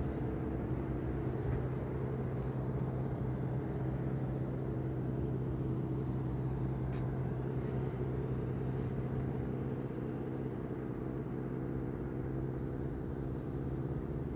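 A vehicle engine idling: a steady low hum that holds an even pitch throughout.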